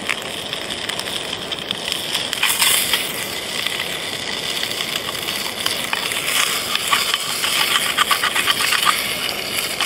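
Sausages frying without oil in a small pan over a gas canister stove: a steady hiss of burner and sizzle, thick with crackling, with a run of sharper rapid crackles about two-thirds of the way through.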